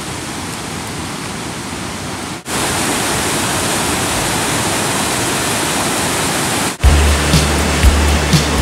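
Steady rush of a whitewater mountain creek tumbling over boulders, louder after a cut about two and a half seconds in. Near the end it gives way to music with a heavy bass beat.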